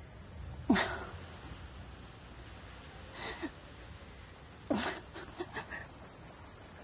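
A woman crying quietly: three short whimpering sobs, each falling in pitch, a couple of seconds apart, over a low steady hum.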